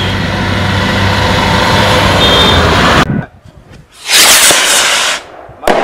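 A vehicle driving past on a highway, with a steady engine hum and road noise, cut off suddenly about three seconds in. Then a loud rush of noise for about a second.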